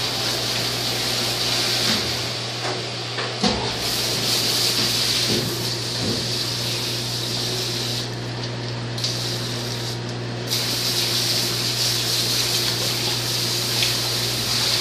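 Hot water spraying from a hose nozzle onto an aluminium engine block, a steady hiss that eases off briefly twice in the second half, over a steady low hum.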